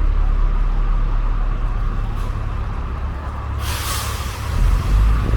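Street traffic rumbling steadily. About three and a half seconds in, a heavy vehicle's air brakes let out a sudden loud hiss that fades over about a second, and the low engine rumble swells near the end.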